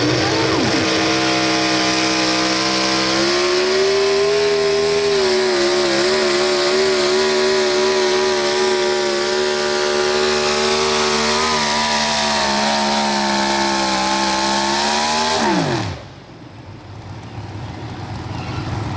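Pro stock 4x4 pulling truck's engine held at high revs under full throttle during a pull, stepping up a little in pitch about three seconds in. Near the end the revs fall away sharply and the sound drops much quieter.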